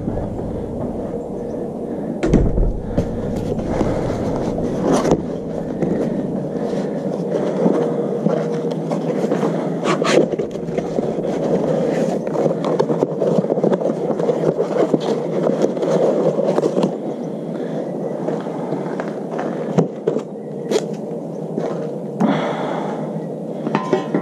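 A new bath fan motor being unpacked from its cardboard box and handled with its metal fan plate on concrete: rustling, scraping and scattered clicks, with a heavy thump about two seconds in, over steady background noise.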